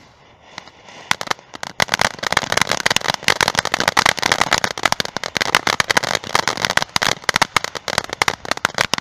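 Domino 1 ground fountain firework going off: a hiss, then from about a second in a dense, rapid crackling that keeps on.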